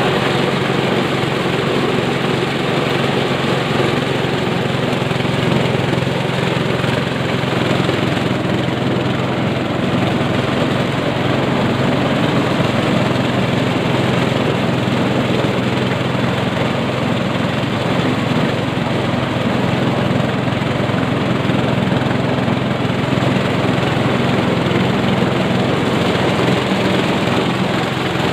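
Engine-driven power corn sheller running steadily, a constant machine drone with a low hum and no change in pace.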